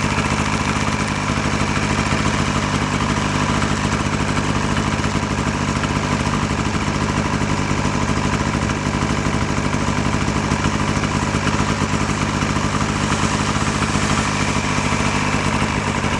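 Snowmobile engine running steadily at an even speed, with no revving.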